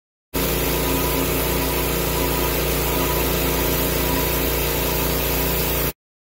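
Gas-engine commercial pressure washer running steadily under the hiss of high-pressure water spray. It cuts in suddenly just after the start and cuts off abruptly near the end.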